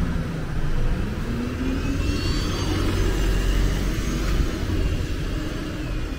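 Single-decker bus driving past close by and pulling away, a steady low rumble with a faint high whine over it, among other street traffic.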